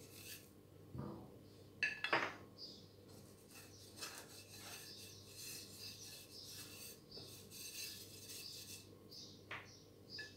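Fingers rubbing and scraping flour off a plate, a faint dry scratching, with a few light knocks of the plate, two near the start and one near the end.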